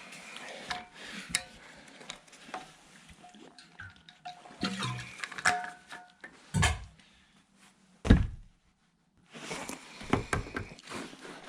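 Irregular knocks and clatter of lumber being handled during floor framing, with two loud heavy thuds about six and eight seconds in.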